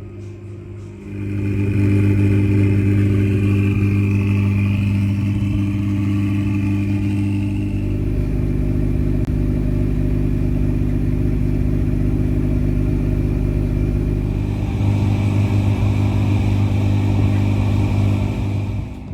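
Car engine running loud at high, steady revs, starting about a second in. It settles to a lower pitch about eight seconds in and drops back just before the end.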